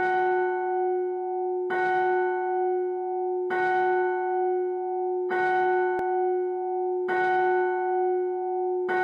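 A single church bell tolling, struck six times at an even pace of about one strike every second and three-quarters, always at the same pitch, each stroke ringing on into the next.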